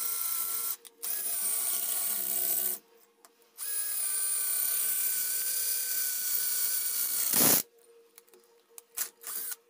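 12-volt IZOM cordless drill drilling into a plastered masonry wall, its motor whining in runs of a few seconds with short pauses between. A short loud thump ends the last run about seven and a half seconds in, followed by a few faint clicks.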